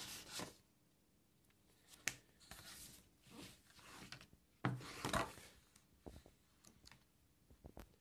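Pages of a small paper booklet being flipped and handled: soft rustles and light clicks, with a louder rustle about five seconds in.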